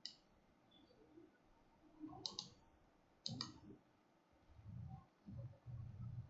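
Computer mouse clicking in near silence: one click at the start, another about two seconds in and a third about three and a half seconds in, with faint low thumps near the end.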